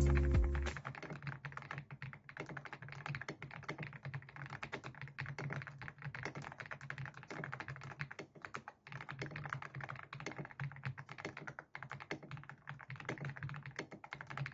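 Fast, continuous typing on a mechanical keyboard fitted with semi-transparent HOA-profile keycaps, a dense stream of key clicks. A music track ends in the first second.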